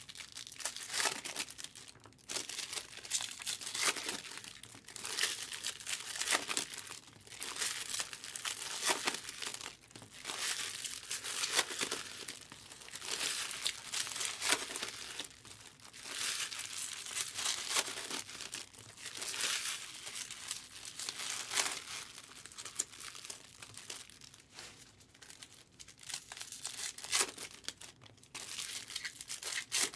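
Foil trading-card pack wrappers crinkling and tearing as packs are opened and handled, in irregular crackly bursts every second or two.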